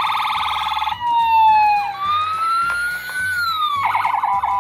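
Imaginext Rescue Heroes toy fire truck's electronic siren sounding: a fast warbling yelp, then a slow wail that falls, rises and falls again, then the fast warble once more near the end. Background music with a steady beat plays underneath.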